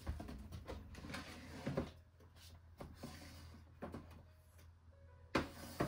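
A box and small craft items being handled and set down: a few light knocks and rustles, over a faint steady low hum.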